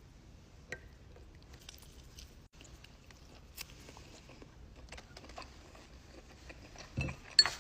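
Quiet eating sounds from a seafood boil: scattered soft clicks and squelches as crab legs are handled and eaten, with a couple of louder knocks near the end.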